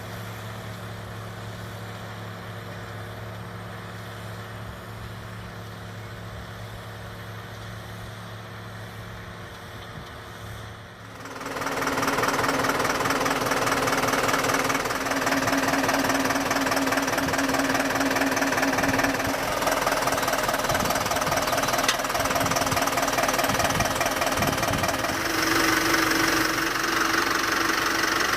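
Machine engine running steadily with an even hum; about eleven seconds in it gives way abruptly to a much louder, busier mechanical clatter that carries on.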